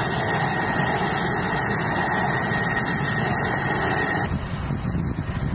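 Steady engine noise with a thin high whine above it. About four seconds in it cuts to softer wind noise.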